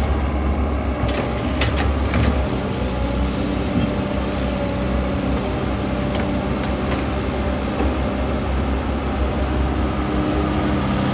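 Engine of a water-well drilling machine running steadily, with a couple of sharp knocks about two seconds in.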